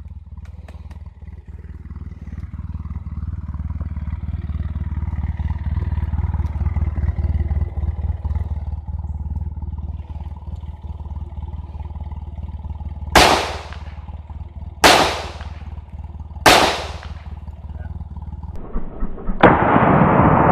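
Three gunshots about a second and a half apart, fired at a hard-drive target, each loud crack followed by a short fading tail. Before them a steady low rumble, and near the end a loud steady rushing noise sets in.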